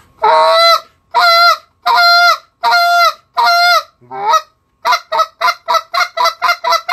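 Goose call blown through spit-note renditions: five drawn-out notes, each dropping in pitch and then holding, like a spit moan, then a fast run of short clipped spit notes at about five a second.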